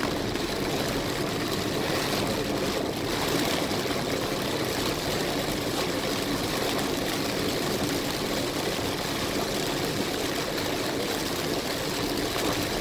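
Heavy rain hitting a moving car's windshield and roof, mixed with tyre noise on the wet road, heard from inside the cabin as a steady rushing noise.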